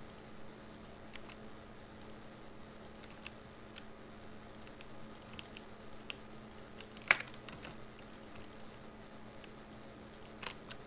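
Sparse, faint taps and clicks on a computer keyboard, with one sharper click about seven seconds in, over a faint steady low hum.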